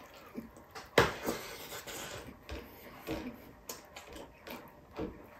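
Close-up eating sounds: chewing and lip smacks while fingers gather rice and stew on a ceramic plate, with small irregular clicks and scrapes. A single sharp knock about a second in stands out as the loudest sound.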